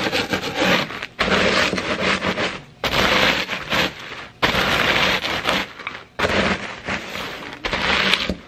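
Saltine crackers crackling and crunching inside a plastic bag as a wooden rolling pin crushes them, in about six long rolling strokes with short breaks between.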